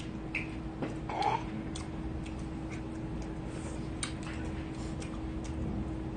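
Metal spoons and chopsticks clicking lightly and irregularly against bowls while eating, over a faint steady hum.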